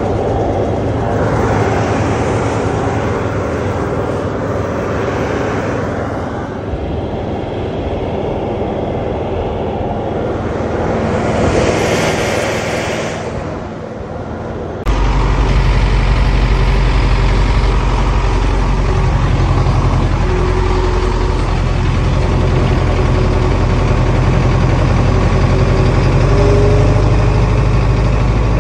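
ZMAJ 170RM combine harvesting corn with a six-row Geringhoff Rota Disc header: engine and threshing machinery running steadily with the rustle of stalks being taken in. About halfway through it cuts abruptly to a louder, deep steady drone of a tractor engine heard from inside the cab while pulling a loaded grain trailer.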